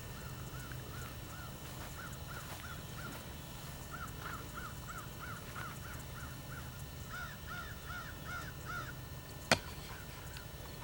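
A bird calling in quick runs of short, repeated arching notes, about three or four a second. A single sharp click about nine and a half seconds in.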